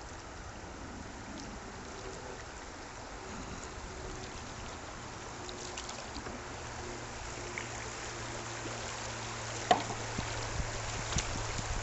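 River water rushing around a kayak in a small rapid, slowly growing louder, with a sharp knock about ten seconds in and a few lighter clicks after it.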